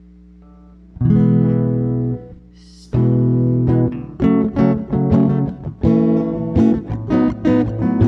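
Acoustic guitar music: a faint held note, then a chord strummed about a second in, another about two seconds later, then quick rhythmic strumming of chords.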